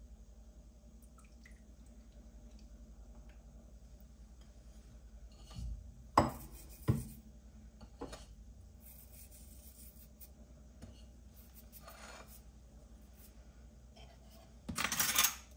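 Kitchen crockery and utensils handled on a counter as egg whites go into a white ceramic mixing bowl. Two sharp clinks come about six seconds in, then soft scrapes, and a louder rustling scrape near the end.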